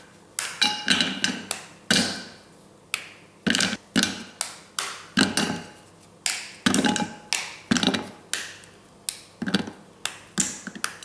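A block of Cadbury milk baking chocolate being snapped into squares by hand. It makes a run of sharp, irregular snaps, about two a second, as pieces drop into a glass dish.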